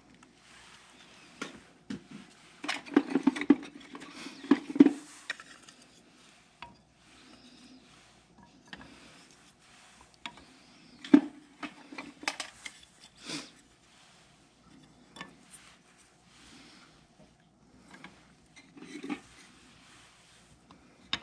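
Kindling sticks clattering and knocking against each other and the metal firebox of a wood stove as the small fire is poked and adjusted, in irregular sharp clicks with a few busier clusters.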